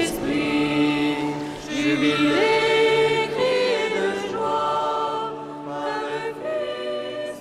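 Choir singing a cappella in long held notes that change every second or two.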